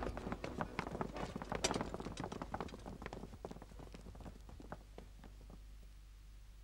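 Footsteps of a group of guards walking away together, many overlapping steps that fade out as they leave, dying away about five seconds in.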